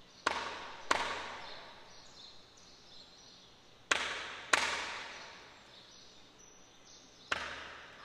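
Five sharp percussive beats marking the start of a seated hula, coming as two pairs about half a second apart and then a single beat, each ringing out briefly in a large echoing hall.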